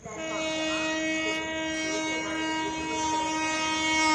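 Horn of an approaching Indian Railways locomotive sounding one long, steady blast, growing slightly louder toward the end.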